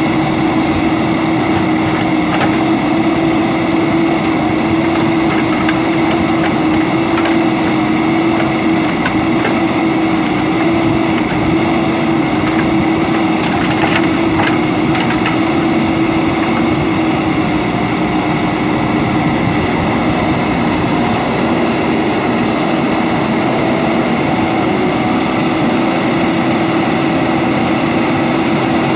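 JCB 3DX backhoe loader's diesel engine running steadily under load as the backhoe arm digs and moves soil, a constant hum with a strong steady tone. A few faint clicks come about halfway through.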